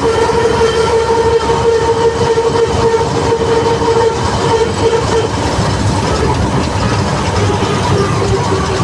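Combine harvester driving in top gear: a steady low engine drone under a continuous high whine, which drops slightly in pitch about five seconds in.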